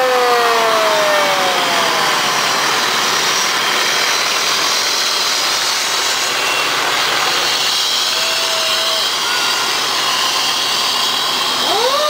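A fire truck's mechanical siren winding down, its pitch falling and fading over the first second or two, then a loud, steady rushing, grinding noise from the fire rescue truck passing close. Just before the end a siren winds up again, rising in pitch.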